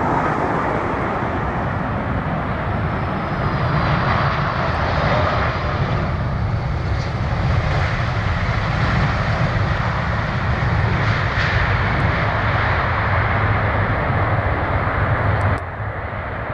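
Boeing 747 freighter's four jet engines running loudly as it touches down and rolls out along the runway, a steady rushing roar with a deep rumble underneath. The level drops suddenly about a second before the end.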